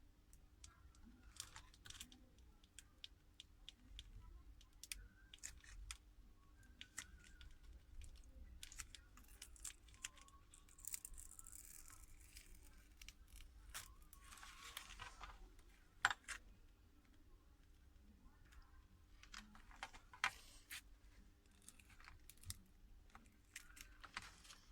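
Faint, scattered clicks, scrapes and short tearing sounds of tools prying the heat-softened glued glass back off a Samsung Galaxy Note 10+, with one sharper click about two-thirds of the way in.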